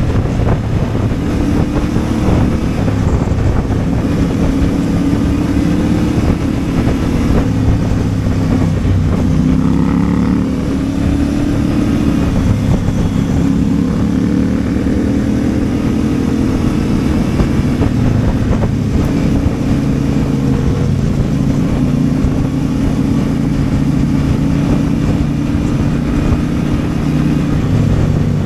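CFMOTO 450MT's 449 cc parallel-twin engine running while riding, its pitch rising and falling gently with the throttle.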